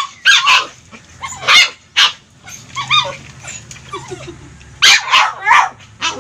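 A dog barking and yipping in a string of short, high-pitched calls, about ten in all, with a lull in the middle.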